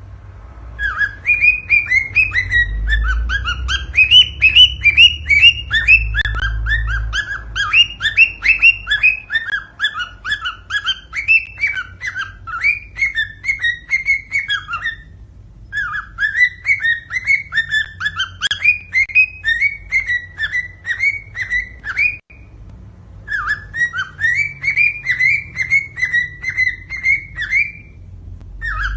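Cockatiel song: fast runs of short, sharp whistled notes, in three long phrases broken by brief pauses about half-way and again about three quarters through. A low rumble lies under the first several seconds.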